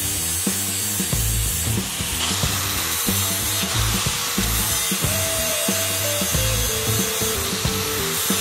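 Cordless angle grinder grinding a steel plate welded to a chain, a steady high grinding hiss, over background music with a regular bass beat and held melody notes.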